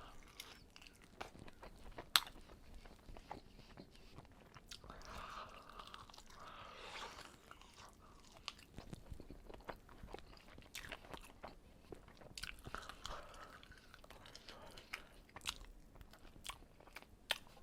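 Close-up chewing and biting of chicken wings: irregular wet mouth clicks and soft crunches, with one sharper click about two seconds in.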